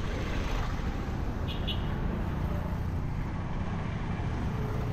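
Street traffic ambience: a steady rumble of motor vehicles on the road, with two short high chirps about a second and a half in.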